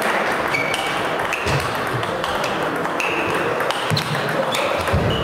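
Table tennis rally: the ball clicks sharply off the rackets and table, a hit roughly every half second to second, each with a short ringing ping, over steady background noise in a large hall.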